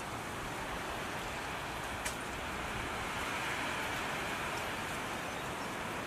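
Steady rushing outdoor noise that swells slightly through the middle, with a single faint click about two seconds in.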